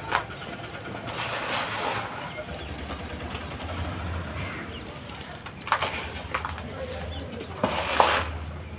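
Hands crushing dry, dusty sand-and-concrete balls: a stretch of gritty crumbling, then a few sharp crunches, the loudest near the end as a ball breaks apart in a puff of dust.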